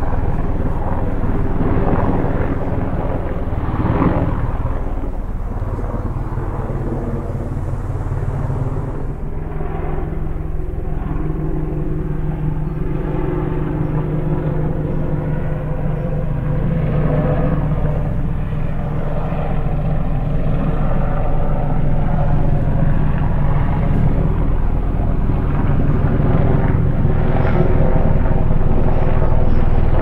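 Steady hum of a multirotor camera drone's propellers, its pitch shifting about nine seconds in.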